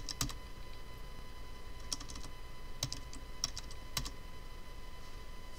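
Computer keyboard keystrokes: about six separate key presses, unevenly spaced over the first four seconds, as a short command is typed.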